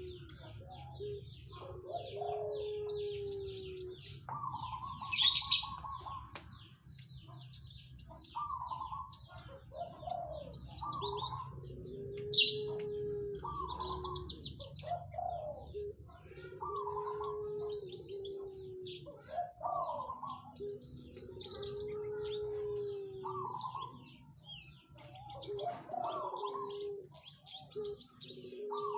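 Branjangan (Horsfield's bush lark) singing a busy, varied song of rapid high chirps and trills. A low, drawn-out note recurs every couple of seconds, and two loud, sharp bursts come about five and twelve seconds in.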